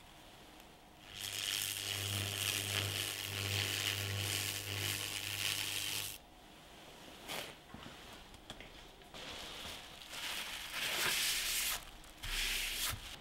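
Electrolytic weld cleaner's brush wand working over a weld, the electrolyte sizzling and fizzing as current passes, with a low electrical hum under the first pass. The first and longest pass starts about a second in and lasts about five seconds. It is followed by a short burst and then a few more passes near the end.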